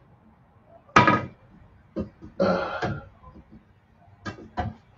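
A man's short wordless vocal sounds: a sudden brief utterance about a second in, a longer murmur a little after two seconds, and a couple of short sharp mouth sounds near the end.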